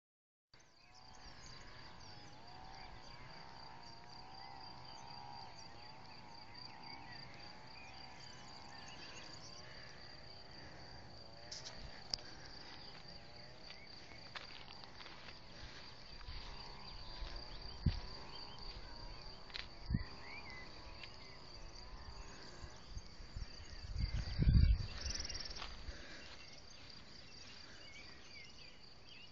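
Crickets singing in the grass, a steady high-pitched trill. A few low thumps on the microphone break through, the loudest a few seconds before the end.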